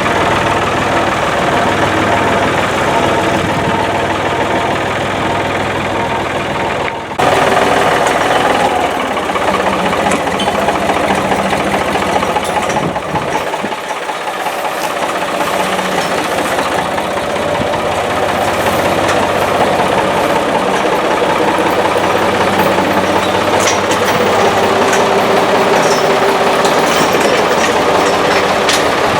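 Case tractor engine running steadily while working, its pitch shifting from time to time. There is an abrupt jump in the sound about seven seconds in.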